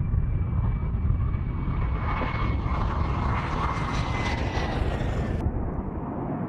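Jet engines of a formation of three fighter jets passing overhead: a steady roar with a thin whine that slowly falls in pitch, the roar growing brighter through the middle. About five seconds in it cuts abruptly to a duller jet rumble.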